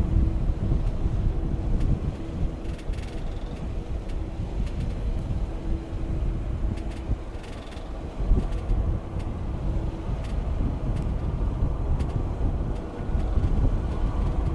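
Low, gusty rumble of wind on the microphone over the distant engine noise of a twin-engine jet airliner on final approach, with a steady hum that stops about ten seconds in.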